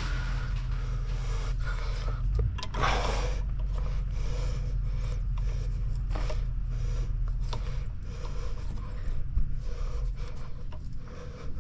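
Scraping, rubbing and light clicks of metal parts being handled while a greased brake pin is worked into its bore, over a steady low hum.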